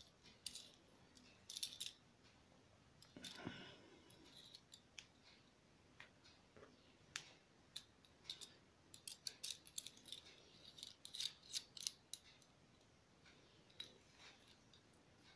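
Faint, scattered small metallic clicks and ticks as the small metal collet and chuck parts of a PCB hand drill are handled and fitted together in the fingers, busiest in the second half.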